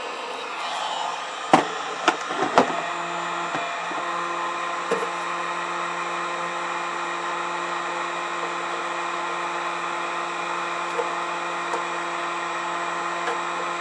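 Handheld heat gun's blower running steadily while softening the old wax potting around a capacitor block. A few sharp knocks come about two seconds in, and a low steady hum joins about three seconds in.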